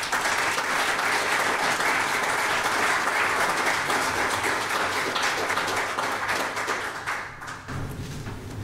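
Congregation applauding with steady hand-clapping that dies away about seven seconds in.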